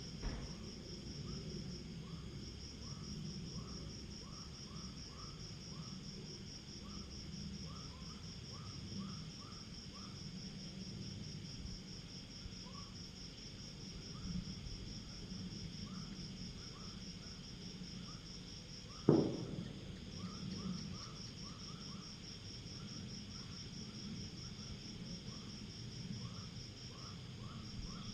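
Night insects trilling in a high, fast, even pulse that pauses briefly now and then, with a softer, lower chirping repeating in short runs over a low background rumble. About two-thirds of the way through, a single loud, short dog bark cuts in.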